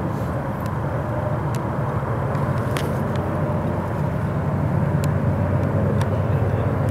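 Steady engine rumble with a faint held hum above it and a few light clicks. It cuts off suddenly at the end.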